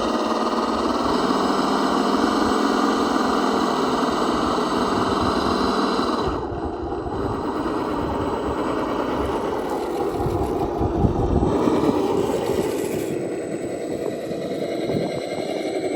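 Electric motor and gear drivetrain of an RC rock crawler whining as it drives, the pitch shifting a little with throttle. After about six seconds it turns rougher and more uneven, with a few louder knocks around eleven seconds in.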